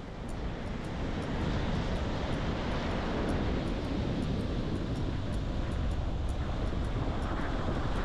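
Wind buffeting the microphone: a steady low rumble with a rushing hiss over it.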